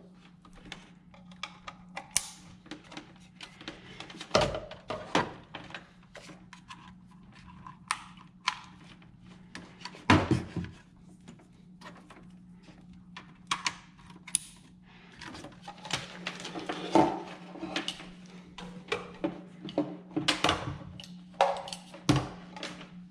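Irregular clicks and knocks of objects being handled and set down, over a steady low hum.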